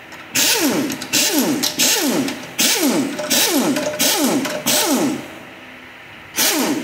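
Impact wrench spinning out the valve-body bolts of a Nissan RE0F10E (JF017E) CVT in about ten quick short bursts, each falling in pitch as it runs down. There is a pause of about a second before the last burst.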